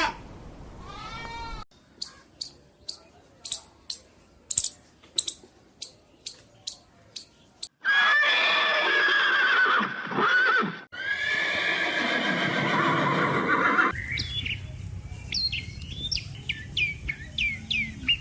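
A string of different animal calls, one after another: the tail of a bleat, a quick run of short sharp calls about two a second, two long pitched calls of about three seconds each, then bird chirps over a background hiss.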